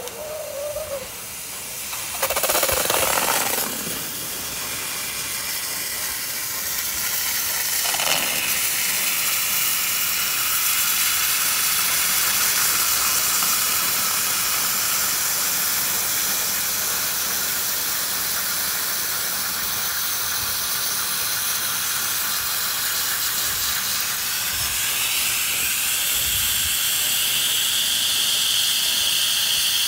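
A hot copper-aluminum ingot, about 2,000 °F, hissing and sizzling as it melts down into a block of ice and boils off steam. A loud surge of sizzling comes about two seconds in, then a steady hiss that slowly builds, with a high steady tone joining it near the end.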